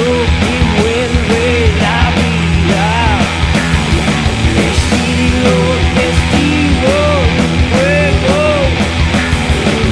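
Loud rock backing music with a steady drum beat and a lead melody whose notes bend up and down.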